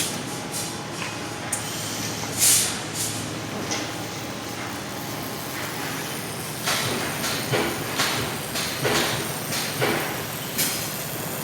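Steady machinery noise in a metal workshop, with irregular clanks and knocks and a short, loud hiss of air about two and a half seconds in.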